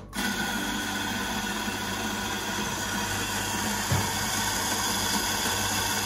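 Victoria Arduino Mythos espresso grinder's motor starting and running steadily as it grinds coffee beans into a portafilter, with one light knock about four seconds in.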